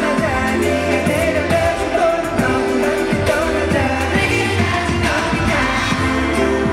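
K-pop song: a male voice singing over a steady drum beat and backing instruments.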